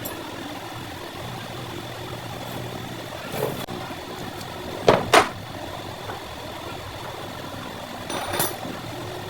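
A steady hum like an engine idling, with a few sharp knocks: one about three and a half seconds in, two loud ones close together about five seconds in, and another near the end.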